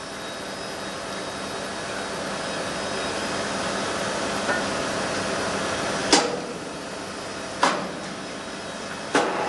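Steady rushing machine noise, as of compressed air or a running hoist, with three sharp metal clanks about a second and a half apart in the second half, as a heavy exhaust valve part hanging from a hoist chain is handled over a pneumatic valve grinder.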